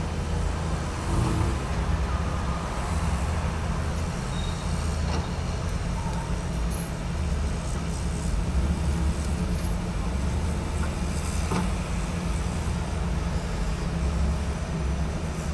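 Steady low rumble of idling heavy-vehicle engines, with roadway traffic noise.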